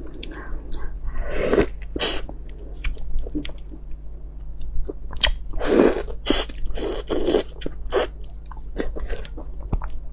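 Close-miked eating of large red shrimp: shells crackling as they are pulled apart, biting, chewing and wet mouth clicks and smacks, coming in irregular bursts.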